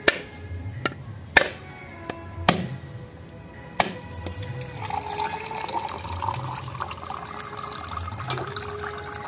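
A heavy knife blade strikes a whole coconut's shell: five sharp knocks, spread over the first four seconds, cracking it open. After the last knock the cracked coconut's water trickles out.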